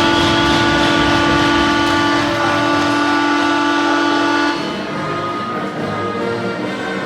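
Ice hockey arena goal horn sounding one long, steady blast to mark a goal, cutting off about four and a half seconds in. Music plays after it stops.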